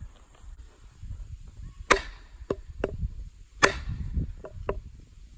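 Wooden knocks as a new hand-carved axe handle is pounded to drive and seat the axe head onto it. There are two sharp strikes about a second and a half apart, with several lighter knocks between and after them.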